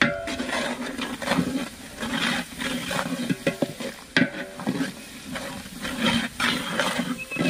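A metal ladle stirs and scrapes thick spice masala in a large metal pot, with repeated scrapes and knocks against the pot. The oily masala sizzles underneath as it cooks.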